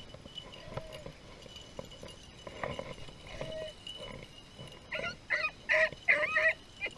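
Beagles baying on a rabbit's track: a few faint cries at first, then a quick string of short, loud bays starting about five seconds in.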